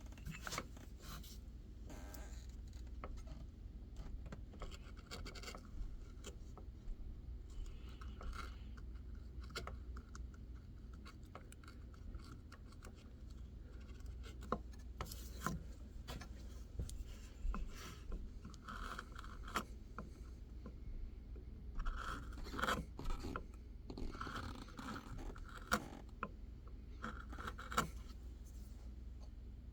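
Hand carving tool cutting and shaving white birch, a hard wood: irregular short scraping strokes with small clicks.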